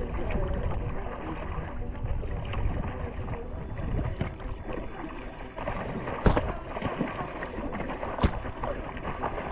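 Paddling on the water: paddle strokes and water sloshing, with wind buffeting the microphone. Two sharp knocks come about six and eight seconds in.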